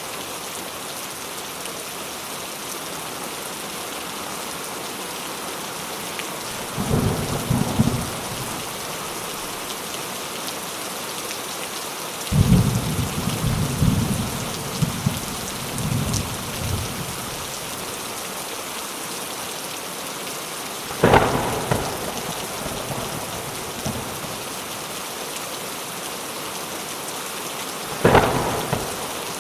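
Steady rain falling, with thunder: a short rumble about a quarter of the way in, a longer broken rumble near the middle, and two sudden sharp claps in the last third.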